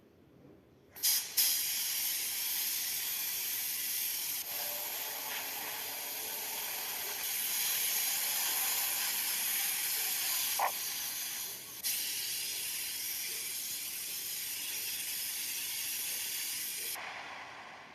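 Paint being sprayed onto a car body: a steady hiss that starts about a second in, dips briefly a couple of times, and cuts off near the end.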